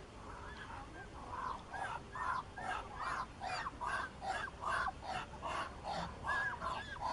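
Muscovy duck calling, a rapid run of short calls, about two to three a second, starting about a second in.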